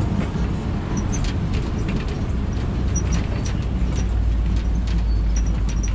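Safari tour truck driving: a steady low engine and road rumble with scattered rattles and clicks. The rumble gets heavier about halfway through.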